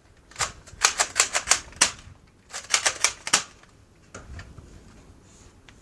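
Nerf toy gun being reloaded: quick runs of sharp plastic clicks, about half a dozen in a run, twice.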